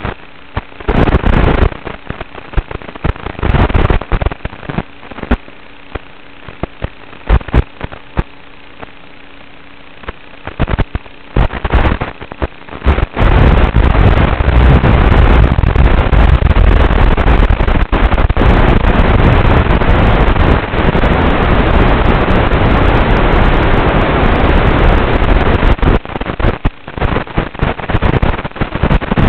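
Static from an analog FPV video receiver's audio channel: crackling bursts of hiss over a faint steady hum, turning into a continuous loud rush from about halfway through and breaking back into bursts near the end, the sign of a weakening, breaking-up video signal from the Tinyhawk micro drone.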